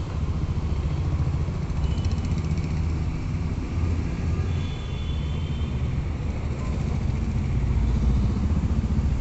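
Chainsaw engine running steadily with a low, fast-pulsing hum, slightly louder near the end.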